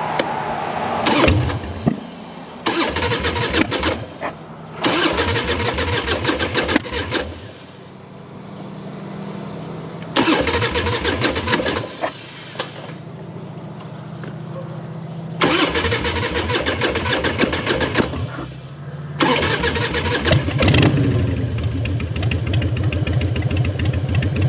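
Harley-Davidson Softail Standard's V-twin being cranked on the starter in several separate tries, each a second or two of rapid chugging, before it catches about 21 s in and settles to a steady idle. It is hard starting, which the owner puts down to ethanol-blended unleaded fed to it the day before.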